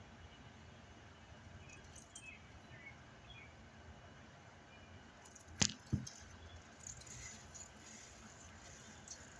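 Two sharp knocks about half a second apart, a little past the middle, over a quiet background with a few faint bird chirps.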